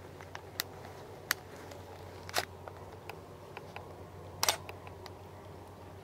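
Scattered sharp clicks and small cracks at irregular intervals over a low steady hum, the loudest about two and a half seconds in and a short cluster of them about four and a half seconds in.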